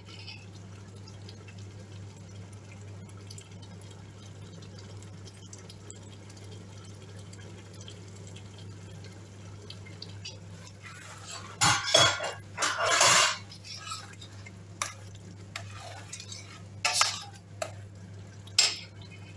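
A metal spoon stirring and scraping inside a stainless steel stockpot of soup, clinking against the pot. The loudest scrapes come in a cluster about twelve seconds in, with a few shorter clinks near the end, over a steady low hum.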